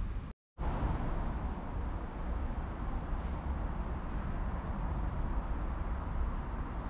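Outdoor ambience: a steady low rumble with faint, high insect chirring above it. The sound cuts out completely for a moment less than a second in, then resumes.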